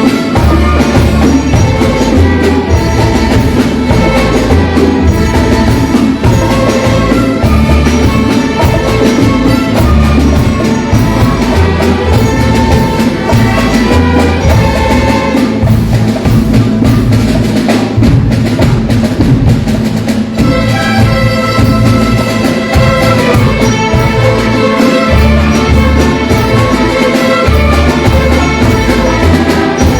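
Loud instrumental folk music with drums and percussion over a steady bass rhythm, easing briefly around the middle before the full band returns.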